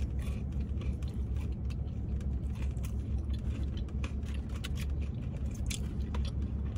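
Steady low rumble of a car idling, heard inside the cabin, under scattered small clicks and crunches of someone eating fried shrimp and handling the food.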